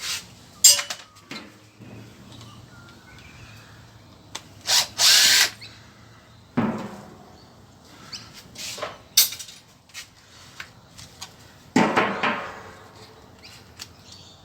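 Knocks and clatter of metal and plastic parts being handled while a microwave oven is dismantled, with a short noisy burst, like a power tool, about five seconds in.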